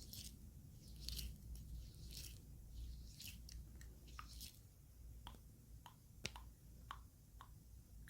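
Faint, close-miked wet squishing sounds about once a second, giving way about halfway through to a run of short, sharp wet clicks.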